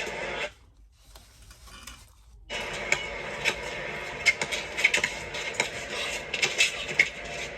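Basketball game sounds: a ball being dribbled in sharp knocks, with short sneaker squeaks on the court. The sound drops out almost completely for about two seconds near the start.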